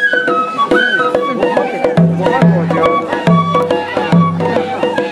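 Japanese festival ohayashi music played by children: flutes carry a melody that steps between held notes, over drum beats falling in pairs and light clicking percussion.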